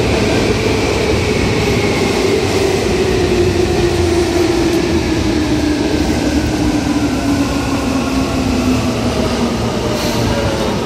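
Seibu 2000 series electric commuter train running, with a steady rumble and a motor whine that falls slowly and evenly in pitch as the train slows.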